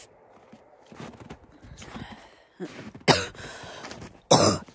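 A person coughing hard twice, about a second apart, near the end, after quieter scuffing in snow.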